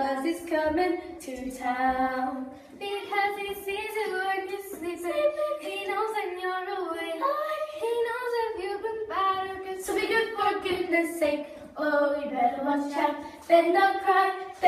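Young girls singing a song together, unaccompanied.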